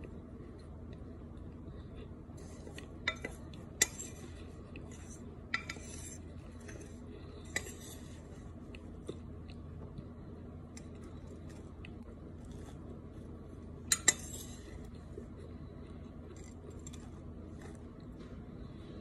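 Metal spoon clinking and scraping against a glass baking dish while scooping powdery cornstarch crumbles, with soft crunching. The clinks are scattered, most of them a few seconds in, and a sharp double clink comes about two-thirds of the way through.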